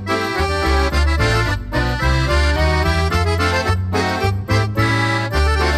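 Background music led by an accordion in a traditional folk style, with a bass line under it.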